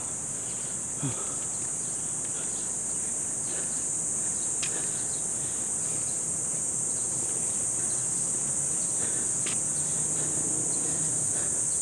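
Steady, high-pitched drone of insects that never lets up, with a couple of faint clicks in the middle.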